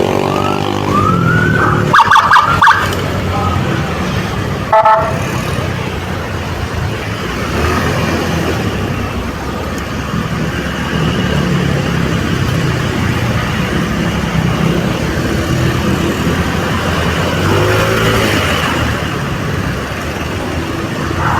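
Vehicle engine and road noise while driving in traffic, with short rising siren whoops at the start, again a few seconds before the end and right at the end. Loud, short pulsed blasts come about two seconds in, and a single brief blast comes about five seconds in.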